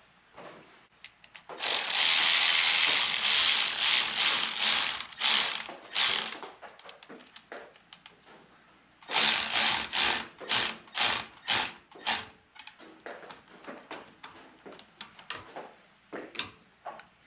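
Hand socket ratchet clicking rapidly as it runs a bolt down on the engine: two long runs of quick strokes, then a few short bursts of clicks.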